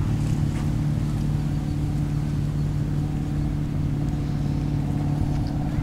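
A steady, low engine hum over a low rumble, holding one pitch throughout.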